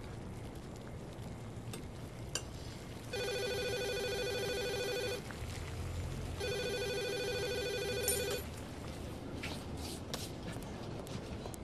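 Telephone ringing twice with an electronic trilling ring. Each ring lasts about two seconds, with a pause of a little over a second between them.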